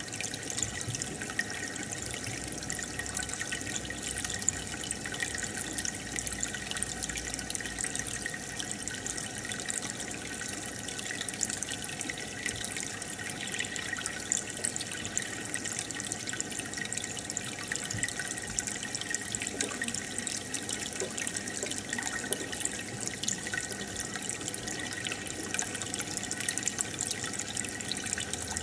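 Aquarium air stone bubbling steadily: a continuous wash of water with many tiny crackles from bubbles breaking at the surface.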